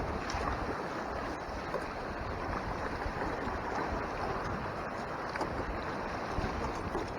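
Water rushing and splashing steadily along the hull of a Hobie Mirage Tandem Island sailing kayak under way, with wind gusting on the microphone.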